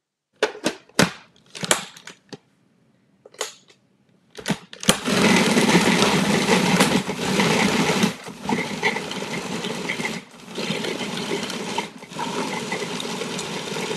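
Several clicks and knocks as the food processor is handled, then its motor starts about five seconds in and runs steadily, grinding a spiced mixture toward a paste. The sound dips briefly three times.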